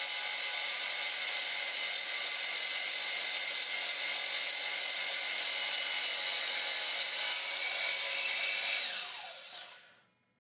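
Electric miter saw running with a steady high whine while its blade cuts a 45-degree miter through wooden bar rail molding. Near the end the motor is switched off and spins down with a falling whine.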